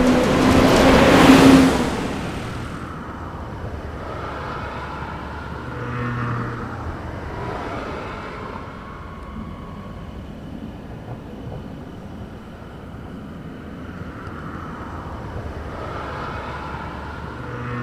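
City traffic. A vehicle passes close with a loud rushing swell in the first two seconds. A steady background of traffic follows, with two more vehicles passing, one about six seconds in and one near the end, each with a low engine hum.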